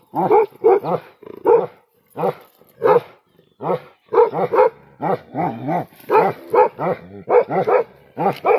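Bhotiya dogs barking in a rapid run, about three barks a second, with one longer wavering call about six seconds in.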